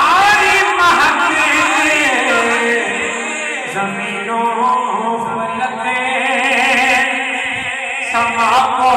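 A man singing a naat in Urdu without instruments, in long melismatic phrases with wavering held notes.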